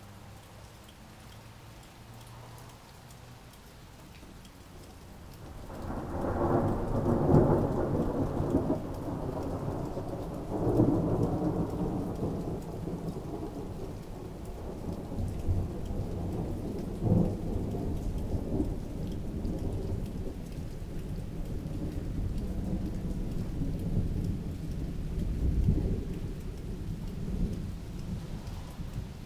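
Light rain, then about five seconds in a long roll of thunder builds to a deep rumble and rolls on, swelling louder several more times.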